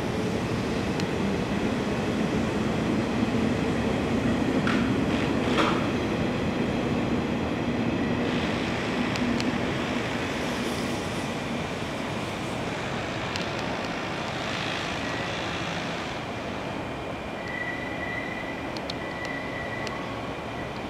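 Nishitetsu 5000-series electric train pulling out and accelerating away: the motor hum rises slowly in pitch, and the wheels give a few sharp clacks over rail joints about five seconds in. The running noise fades as the train moves off, with a thin high wheel squeal near the end.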